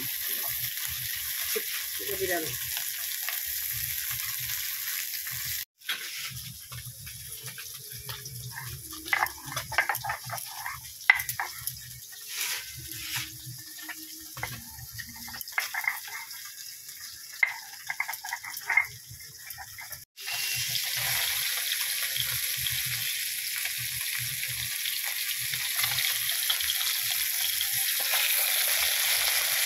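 Small bata fish sizzling as they fry in hot oil in a wok. About six seconds in, the sizzle cuts off and is replaced by the scraping and knocking of a stone pestle grinding spices on a flat stone slab. About twenty seconds in, the frying sizzle returns, louder, as a spatula turns the fish.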